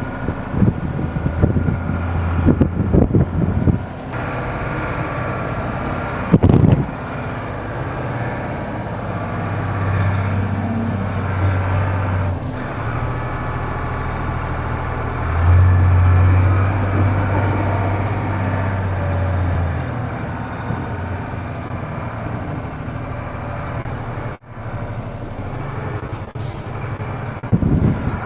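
Mercedes-Benz Unimog U2450 6x6 diesel engine running under load as the heavy truck crawls over boulders. The drone swells twice as the engine works harder, with rumbling knocks in the first few seconds and one louder knock around six seconds in.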